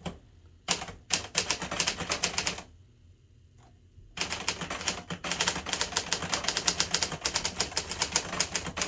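Hermes 3000 manual typewriter being typed on: a quick run of keystrokes, a pause of about a second and a half, then a long steady run of fast key strikes.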